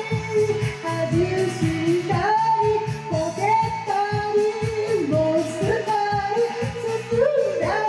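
Upbeat pop song with a female vocalist singing in Japanese over a steady beat and backing band.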